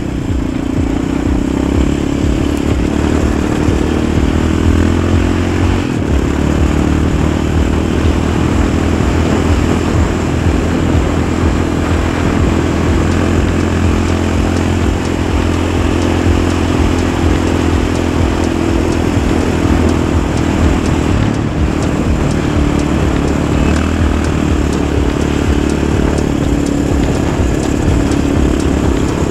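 Yamaha Raptor 700 ATV's single-cylinder four-stroke engine running under way, its pitch rising and falling with the throttle, with a couple of brief dips in between.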